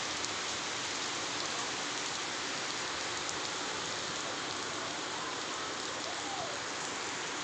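Heavy cyclone rain pouring steadily onto the ground, puddles and foliage.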